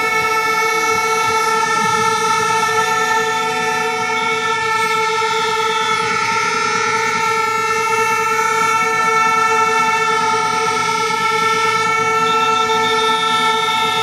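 A horn sounding one steady, unbroken note the whole time, loud and constant.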